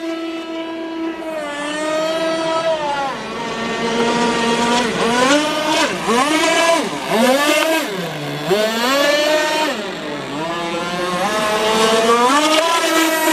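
Two-stroke 27cc Tiger King reed-valve engine with a silenced tuned pipe, driving an RC racing boat at high speed. It holds a steady high note, then its pitch falls and rises several times, dipping lowest near the middle, before settling back to a steady note near the end.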